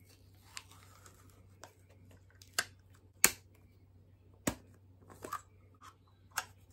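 Plastic FreeStyle Libre glucose-sensor pack and applicator being opened and handled, giving a series of sharp, irregular clicks and taps, the loudest about three seconds in, with a soft rustle near the start.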